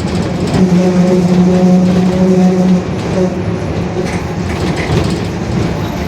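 Rear differential of a Mercedes-Benz OF-1721 bus droning very loudly over the bus's running noise. A steady pitched drone comes in about half a second in and fades out a little before the halfway point, leaving the running noise.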